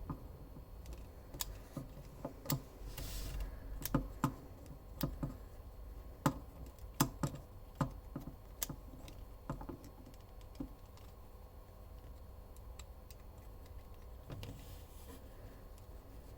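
Plastic Lego ratchet freewheel clicking: the pawl snaps over the ratchet teeth in irregular clicks. The clicks come thickest in the first ten seconds or so, then thin out to an occasional one.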